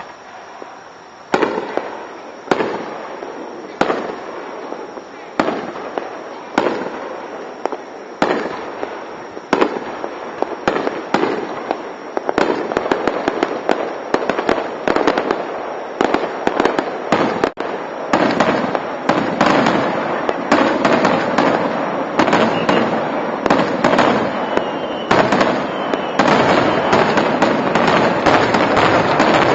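Aerial fireworks shells bursting, picked up by a dashcam's microphone: single loud bangs about every second or so at first, growing into a rapid, dense barrage of bangs and crackling in the second half.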